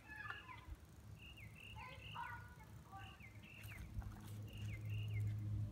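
A bird chirping over and over, short falling chirps about every half second. A low steady hum grows louder in the second half.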